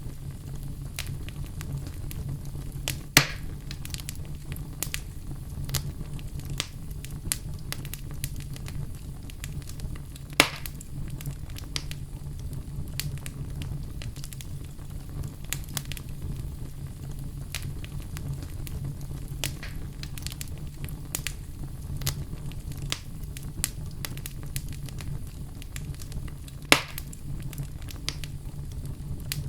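Fireplace fire crackling: frequent small pops and snaps over a steady low rumble, with three sharper, louder pops about three seconds in, about ten seconds in and near the end.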